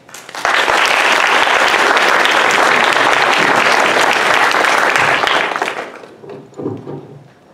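Audience applauding: the clapping starts almost at once, holds steady for about five seconds, then dies away.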